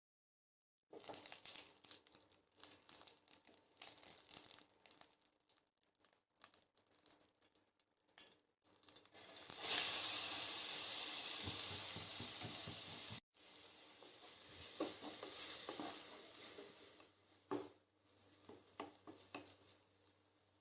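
Food sizzling as it fries in a pan, with scattered clicks and scrapes. About ten seconds in, a louder, steady sizzle runs for about three and a half seconds and cuts off suddenly.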